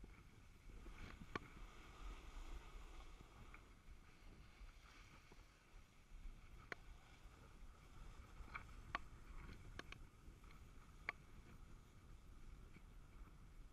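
Faint hiss and rumble of a snowboard sliding over groomed snow, with about six sharp clicks scattered through it.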